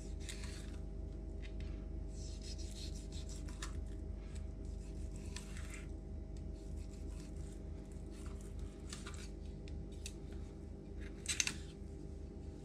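Filleting knife slicing a trout fillet off the rib cage and backbone: short, irregular scraping strokes as the blade runs along the bones, the sharpest stroke near the end, over a steady low hum.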